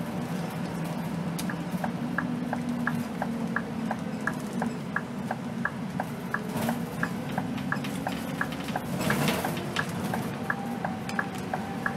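Scania K280 bus's turn-signal indicator ticking, about three clicks a second in an alternating tick-tock, over the steady drone of the bus's engine. A brief rush of noise comes about nine seconds in.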